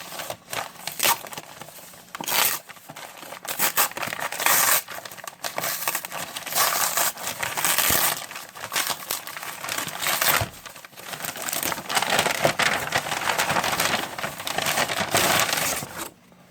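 Packaging crinkled and torn off by hand to get at a knife box, in irregular rustling bursts with scattered sharp clicks, stopping abruptly near the end.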